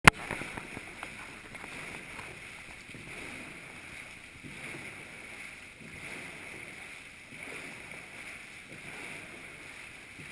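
Dragon boat paddles churning the water of an indoor paddling tank in unison: a steady rush of water that swells with each stroke, about one stroke every second and a half. A sharp click at the very start.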